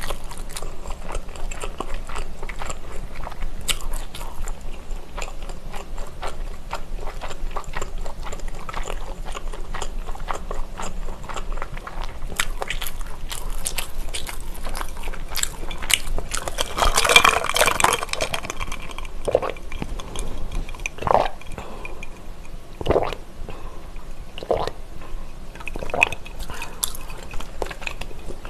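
Close-miked chewing with the mouth closed, a run of small wet clicks. A little past the middle comes a louder sip of iced calamansi drink, followed by several separate swallows.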